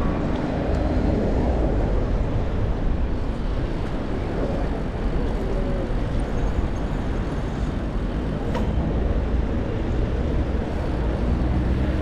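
Riding a road bike through city traffic: steady wind rumble on the handlebar camera's microphone over tyre noise and passing cars, with one sharp click about eight and a half seconds in.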